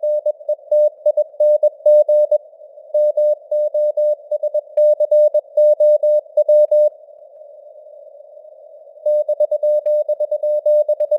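Morse code (CW) keyed at 21 words per minute: a single mid-pitched tone beeping in dots and dashes over simulated radio static. The keying stops for about two seconds a little past the middle, leaving only the hiss, then starts again.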